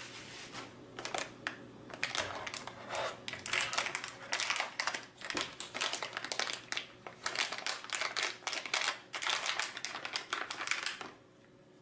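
Silver anti-static bag crinkling and crackling as it is unfolded and opened by hand, in quick irregular crackles; it stops about a second before the end.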